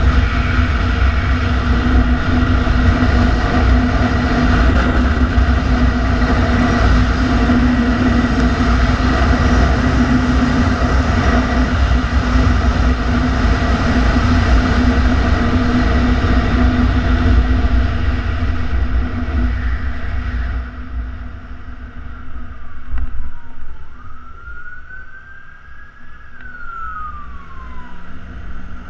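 Yamaha Xenter 150cc scooter's engine running at a steady cruise with wind buffeting a helmet-mounted microphone. About two-thirds of the way through the sound drops as the scooter slows, and an ambulance siren wails, rising and falling, over the last several seconds.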